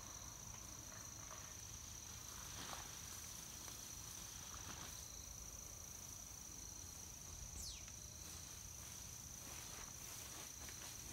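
Crickets trilling in one steady high-pitched note, with faint rustling and crinkling as a black bear noses through plastic trash. A single short falling whistle sounds about three quarters of the way through.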